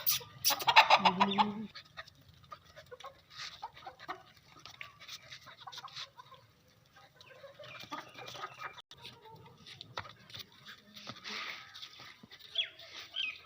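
Animal calls: one loud pitched call about a second in, then scattered fainter calls and short chirps, with a cluster near the end.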